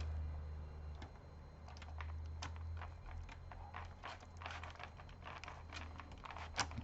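Scattered light clicks and taps of plastic and metal laptop parts being handled and pried during disassembly. A low hum runs under the first half and fades about three seconds in.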